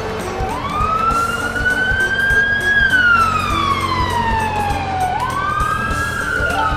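Siren sound effect wailing slowly up and down, a long rise and fall followed by a second quick rise and slow fall, over background music.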